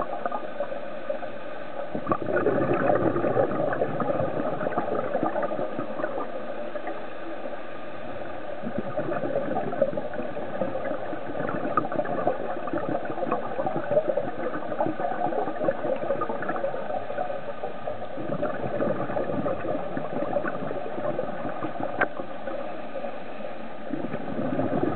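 Underwater recording: a continuous gurgling, bubbling wash of water with a few sharp clicks, swelling louder about two seconds in and again near the end.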